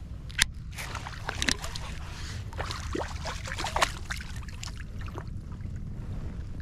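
Hooked fish splashing at the surface beside a kayak while it is landed by hand: a run of sharp splashes and water slaps, loudest near the start and again about four seconds in, dying away near the end, over a steady low rumble.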